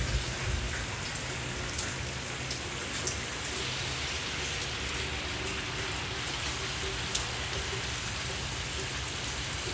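Steady rain falling, with a few single drips ticking close by.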